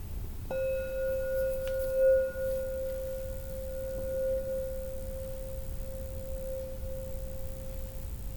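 A single struck, ringing metal tone: one steady pitch that starts with a strike about half a second in, swells briefly around two seconds, and rings on slowly fading, its fainter higher overtones dying out within the first few seconds.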